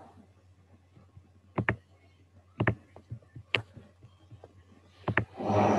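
A few sharp clicks at a computer, some in quick pairs, over a low steady hum. A short rush of noise comes near the end.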